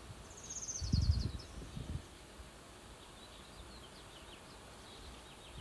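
Warbling white-eye calling: a quick, high, descending run of chirps about a second in, then a scattering of short, thin down-slurred chirps in the second half. A low rumble is the loudest sound, between about one and two seconds in.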